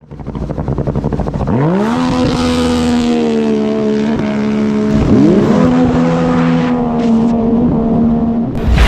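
Racing jet ski engine accelerating hard, its pitch climbing and then holding at high revs, easing off briefly and climbing again, with a rushing hiss over it. A heavy boom comes right at the end.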